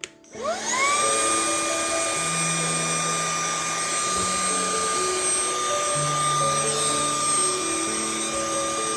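Cordless handheld car vacuum switched on with a click, its motor spinning up over about a second to a steady high whine with a rushing hiss, running at full suction.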